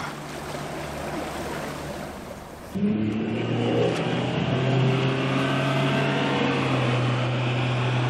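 Water rushing and hissing against the hull, then about three seconds in the outboard motor of a small fishing boat comes in. Its pitch rises as the boat speeds up, then it runs steadily.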